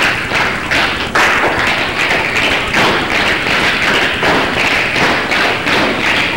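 A group of dancers' shoes tapping and stamping on a hard studio floor: many quick, overlapping taps and thuds.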